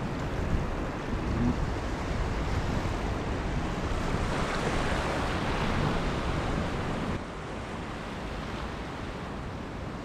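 Steady wind noise on the microphone mixed with the wash of shallow sea water over a reef flat, an even hiss that drops a little about seven seconds in.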